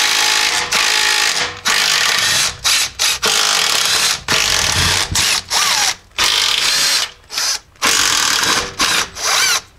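Cordless impact tool hammering in repeated short bursts as it spins out the 15 mm bolts holding the two halves of an NP231 transfer case together.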